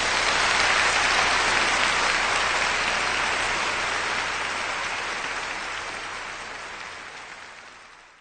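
Audience applauding, swelling at the start and slowly dying away.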